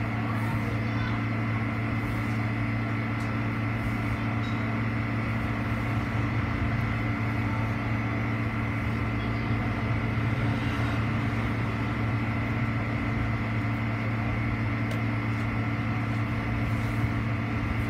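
Steady machine hum with a thin high whine above it, unchanging throughout.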